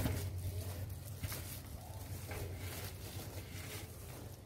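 A thump right at the start, then faint, irregular rustling and crinkling of the clear plastic stretch wrap around a car tyre as hands grip and turn the tyre.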